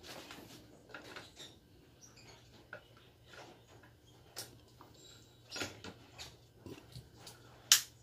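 Light handling noises from a hair dryer and its cord being picked over: scattered small clicks and rustles, with one sharp click near the end. The dryer is not running yet.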